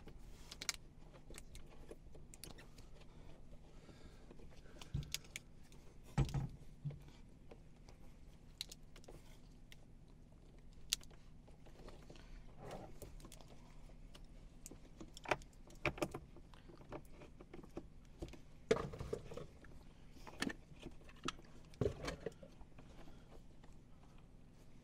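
Braided water hoses being threaded by hand onto the plastic hot and cold fittings of an RV outdoor shower box: scattered light clicks, taps and rubbing of hose and plastic at irregular moments, over a faint steady hum.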